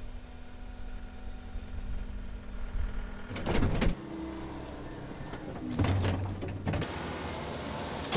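John Deere 333G compact track loader running, its diesel engine humming steadily with a hydraulic whine. There are two louder noisy surges, about three and a half seconds in and again around six seconds.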